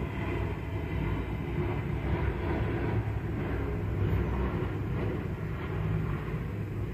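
Steady low rumbling background noise.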